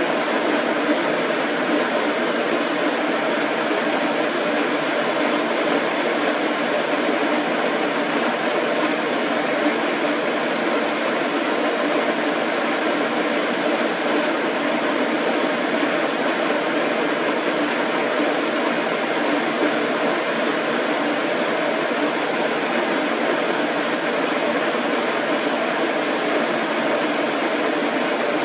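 Steady, unchanging rushing noise with a faint hum in it, like a fan or air conditioner, with no breaks or separate events.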